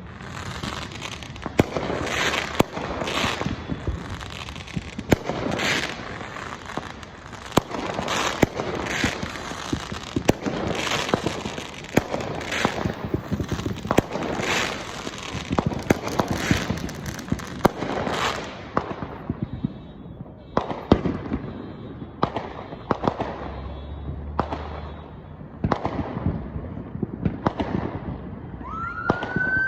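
Fireworks going off: rapid crackling and popping with a loud burst about once a second, thinning out after about 18 seconds. Near the end a siren starts, rising and then holding its pitch.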